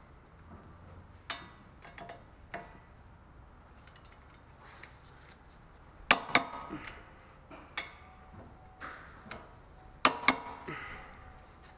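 Torque wrench tightening brake bolts to 148 foot-pounds, with a few small ratcheting clicks and then two loud sharp double clicks, about 6 and 10 seconds in, as each bolt reaches torque.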